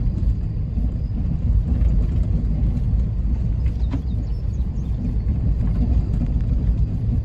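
Steady low rumble, dense and unbroken, with no clear events over it.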